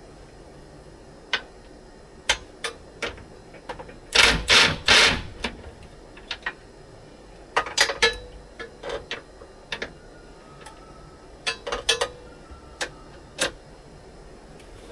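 Socket wrench and metal seat-mounting bolts being worked by hand: scattered sharp metal clicks and clinks, with two louder bursts of rapid clicking about four seconds in.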